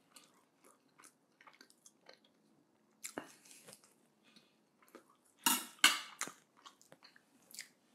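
A man chewing a mouthful of roast chicken with his mouth closed: wet clicks and smacks of the mouth. A cluster of louder clicks comes a little past halfway.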